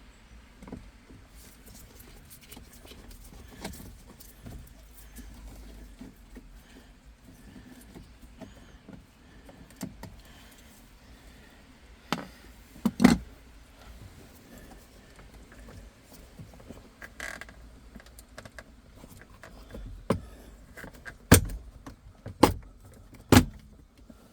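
Scattered light clicks and rattles, then a handful of sharp, loud knocks in the second half, from hands and tools working on car interior parts.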